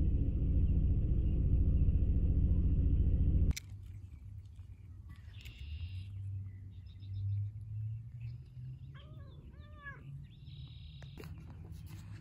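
A steady low rumble that cuts off suddenly about three and a half seconds in. It gives way to quiet outdoor background with a few short bird chirps and two short rising-and-falling calls.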